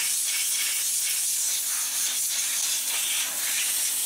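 Compressed-air blow gun with a long nozzle hissing steadily as it blows water off a freshly degreased motorcycle engine to dry it, the hiss wavering as the nozzle moves.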